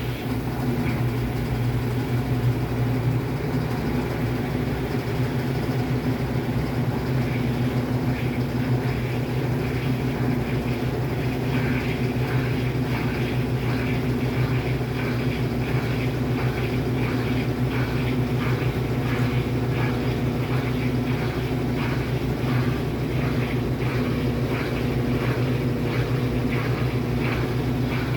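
Brastemp 8 kg washing machine on its spin cycle: motor and drum running steadily with a low hum, and a regular swishing beat about twice a second that becomes clearer about a third of the way through.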